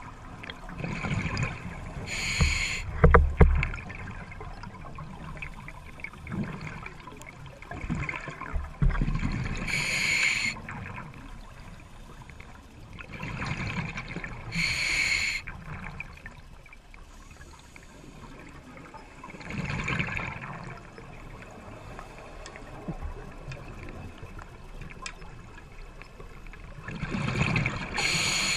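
Scuba diver breathing underwater through a regulator: about five breaths, each a hissing inhale and a rush of exhaled bubbles, spaced five to seven seconds apart. A couple of sharp knocks about three seconds in.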